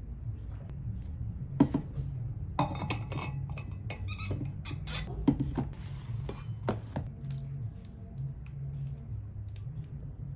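Things being handled on a desk: a metal water-bottle cap put back on, a notebook moved and a laptop opened. Short clicks, light knocks and rustling come in clusters between about one and a half and seven seconds in, over a steady low hum.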